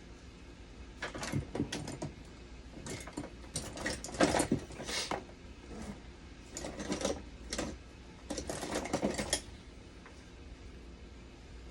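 Clicking and clattering of small hard parts and tools being handled, in several bursts of quick clicks over about eight seconds.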